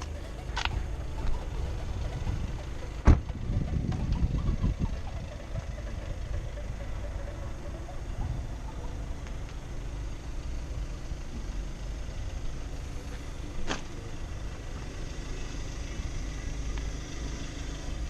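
Audi A3's 2.0 TDI four-cylinder diesel engine idling steadily, with a sharp knock about three seconds in and a fainter click later on.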